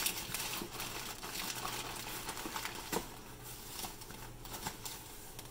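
Crumpled brown kraft packing paper rustling and crinkling as a hand digs through it inside a cardboard box, with scattered sharper clicks, one louder about three seconds in.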